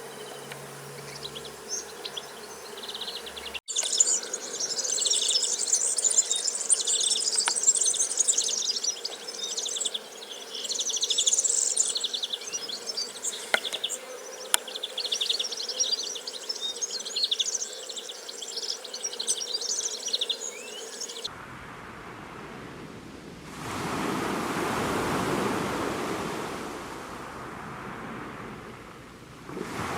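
Insects buzzing and chirring: a steady low hum under dense, fast high-pitched trills. About two-thirds of the way through, the sound cuts to a rushing noise that swells for a few seconds and fades.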